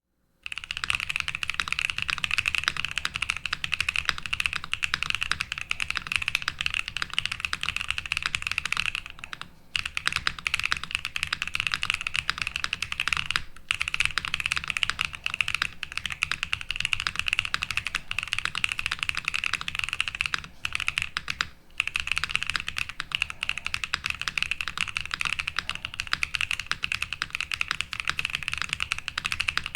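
Transition Lite TKL mechanical keyboard, stuffed with all its foams, being typed on quickly and continuously, with brief pauses about a third of the way in, near the middle and about two-thirds in. A full keystroke sound that the owner finds still somewhat hollow.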